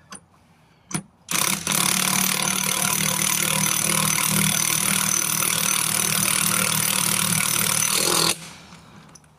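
Impact wrench running steadily for about seven seconds, driving a bead breaker's screw to push the bead of a heavy-duty truck tire off its rim. It starts a little over a second in and cuts off sharply near the end.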